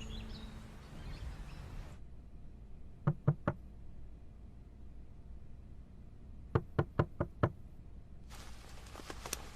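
Knuckles knocking in short bouts of quick raps: three about three seconds in, five more about three and a half seconds later, and fainter taps near the end. The tail of soft plucked-string music fades out at the start.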